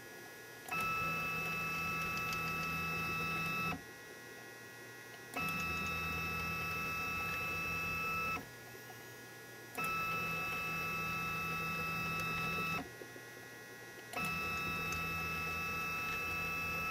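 Stepper motor of a homemade RepStrap 3D printer driving an axis back and forth, four moves of about three seconds each with short pauses between: a steady whine over a low hum that starts and stops abruptly. The axis is being traversed along a square with a dial test indicator to check that it runs perpendicular.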